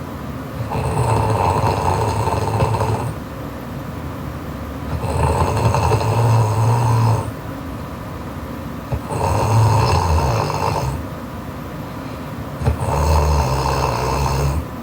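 A sleeping young woman snoring loudly: four long snores, each lasting about two seconds, coming about every four seconds in a steady rhythm.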